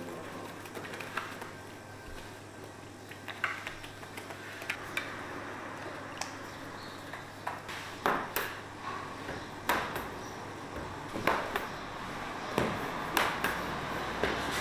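Kitchen clatter of bakery work: scattered sharp knocks and clinks, some briefly ringing like metal pans and utensils, over a steady low hum. The knocks get louder and closer together about halfway through.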